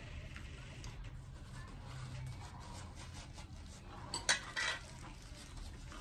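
Dishes and tableware clinking on a serving tray that holds tea glasses and a plate, with two sharp clinks a little past four seconds in.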